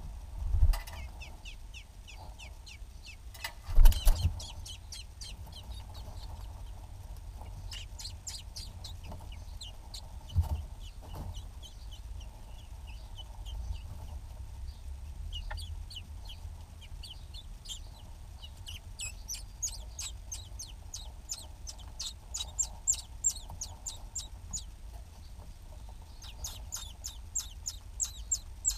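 Eurasian blackbird nestlings begging: rapid, high, thin cheeps repeated over and over, growing busier and louder in the last third while the adult female is at the nest feeding them. Two loud dull thumps about a second and four seconds in, the second the loudest sound, with a weaker one near ten seconds.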